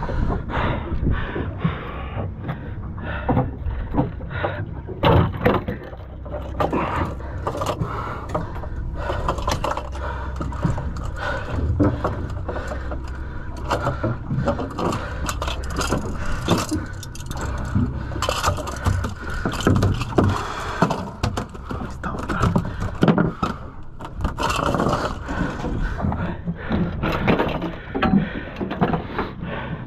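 Repeated scraping, clicking and rattling as a popper lure with treble hooks is worked free from a tuna lying on a fibreglass boat deck, over steady low background noise.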